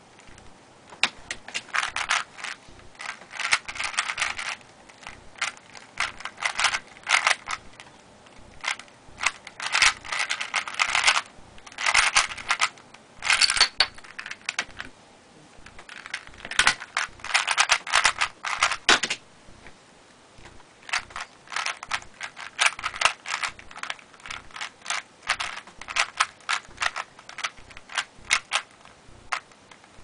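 A 3x3 Rubik's cube turned fast in a timed speedsolve: quick runs of plastic clicking and clacking from the layer turns, broken by short pauses, up to about 19 seconds in. After a brief lull the turning starts again more lightly and evenly.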